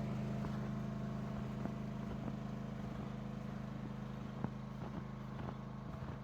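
Honda portable generator's engine running steadily with an even hum, slowly fading, with a few faint ticks.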